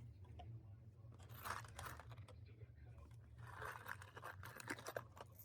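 Faint scraping and rustling with a few light clicks, in two short spells about a second and a half and four seconds in: tools being handled and taken off their holders.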